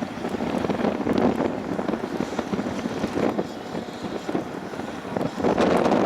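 Gusty storm wind buffeting the microphone, the gusts rising and falling and growing stronger near the end.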